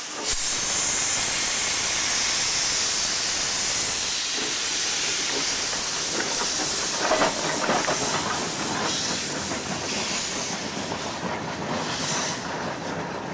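FS Gr.981 rack steam locomotive venting steam in a loud, steady hiss from its open cylinder drain cocks as it gets under way. The hiss starts abruptly and eases slightly near the end.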